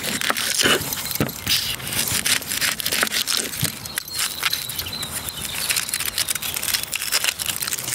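Kitchen knife slicing through a raw red onion, a run of irregular crisp crunching cuts as the blade goes through the layers.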